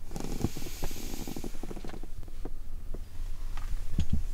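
A chair being pulled out across a wooden floor and sat on: a scrape at first, then scattered knocks, and a low thump about four seconds in.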